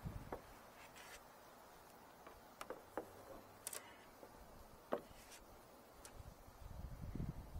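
Faint, scattered clicks and light taps of a small screwdriver being worked into a rubber cab-light gasket, with a soft low rumble near the end.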